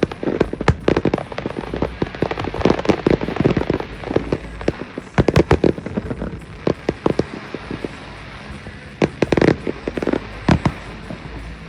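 Fireworks display: a rapid, dense string of bangs and crackles with low rumbling booms, in heavier clusters about five seconds in and again near nine seconds.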